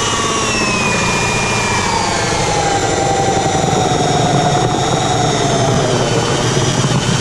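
Cordless drill driving a 4 1/8 inch hole saw through the wall of a plastic drain basin, cutting the pipe inlet hole. The motor runs steadily throughout with a whine that slowly falls in pitch, mixed with the grinding of the saw teeth in the plastic.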